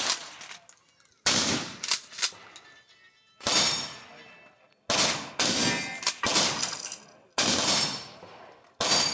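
Shotgun fired repeatedly, about six shots a second or two apart, each a sharp crack followed by a decaying echo.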